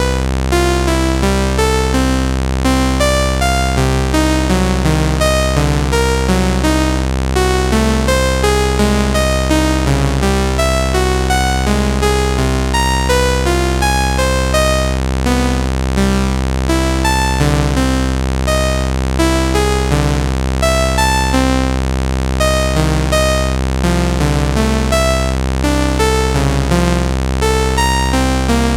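Synthesizer playing a quick, busy sequence of short notes that jump around in pitch over a steady low drone.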